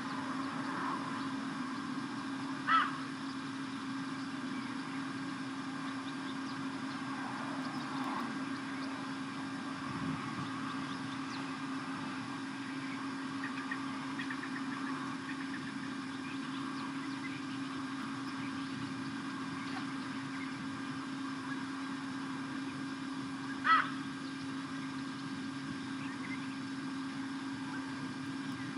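A steady low hum throughout, with two short, sharp, high calls, about 3 seconds in and near the end; these fit the metallic 'tink' alarm call of blacksmith lapwings. Fainter bird chirps come and go between them.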